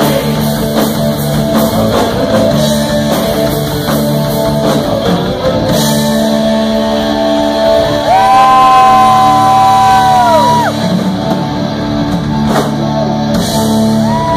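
Live rock band playing: distorted electric guitars, bass guitar and drums, with shouted vocals. A long held note rings out about eight seconds in and is the loudest part, and a shorter held note comes just before the end.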